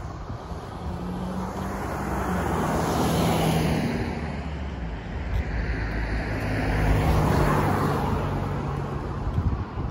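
Road traffic: cars passing on the road, one swelling past about three seconds in and another about seven seconds in, over a steady engine hum.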